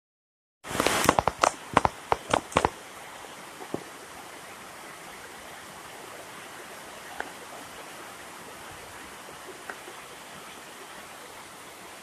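Rain falling in an even, steady hiss, with a few faint ticks of drops scattered through it. Just under a second in, a rapid run of loud knocks and clicks, the loudest sound, lasts about two seconds and then stops.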